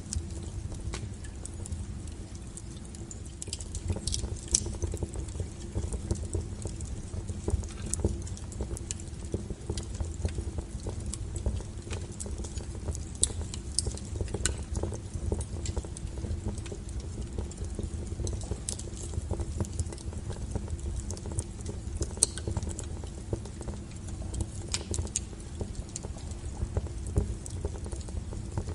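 Wood fire burning, crackling with frequent small pops and a few louder snaps over a low steady rumble of the flames.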